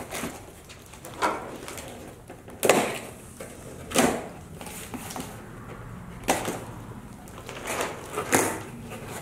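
Cardboard packaging and plastic wrap being handled while unboxing: a cardboard divider lifted and foam inserts pulled out, giving about six separate bursts of rustling and dull knocks.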